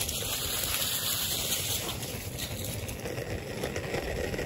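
Skateboard wheels rolling over rough asphalt, a steady rolling noise.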